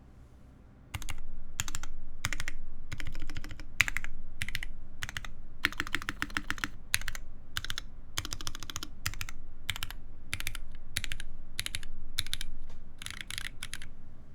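Typing on an ORI CLS-2//65 mechanical keyboard with lubed Cherry-top / Gateron Ink-bottom switches on an aluminium plate and GMK keycaps: keystrokes come in quick runs with short pauses, starting about a second in and stopping just before the end.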